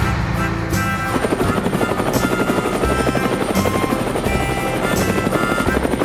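Cartoon helicopter sound effect: the rotor's fast, steady chop, starting about a second in as a low truck-engine rumble drops away, with background music throughout.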